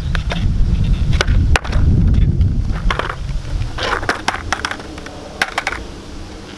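Skateboard on asphalt during a failed kickflip attempt: a low rumble for the first two seconds, a sharp loud clack about a second and a half in, then several lighter clacks and scrapes as the board hits and flips on the ground.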